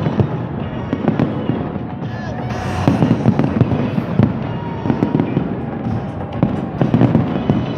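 Large fireworks display in full swing: a dense, continuous barrage of shell bursts, bangs and crackles, overlapping with no pauses.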